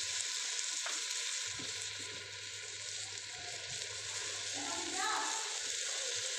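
Chopped onions, tomatoes, potatoes and green chillies frying in desi ghee in a metal pot, with a steady sizzle. A few light clicks come from a steel ladle stirring in the pot as turmeric is added.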